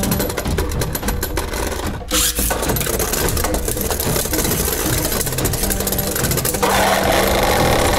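Beyblade Burst spinning tops whirring and rattling as they spin and grind on the plastic floor of a stadium, with dense rapid clicking. It breaks off briefly about two seconds in and gets louder and rougher near the end.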